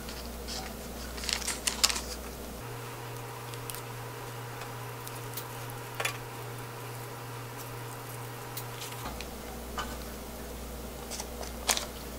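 Light clicks and soft taps of cooked jeon being lifted off a stainless wire rack and laid on a parchment-lined platter, over a steady low hum. A cluster of clicks comes about two seconds in, a single one about six seconds in, and a few more near the end.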